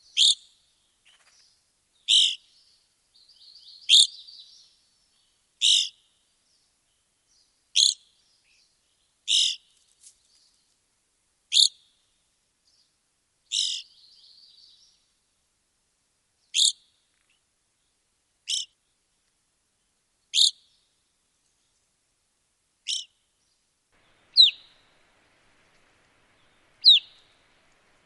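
Evening grosbeak giving short, loud, high calls about every two seconds. The last few are clearer single notes that slide downward.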